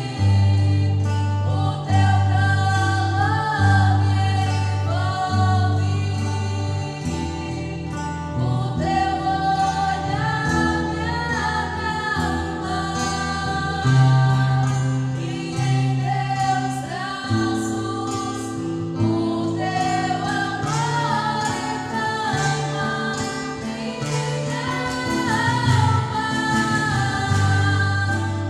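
Gospel-style song with a choir of voices singing over sustained bass notes.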